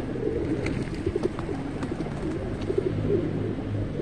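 A flock of feral pigeons cooing, many low coos overlapping continuously, with a few faint light clicks.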